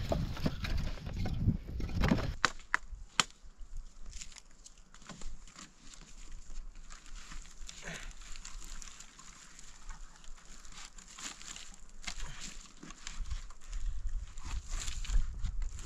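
Split firewood knocking and clattering as pieces are handled and stacked into a bamboo basket, with sharp wooden clicks, the clearest about two and three seconds in. A low rumble at the start and again near the end.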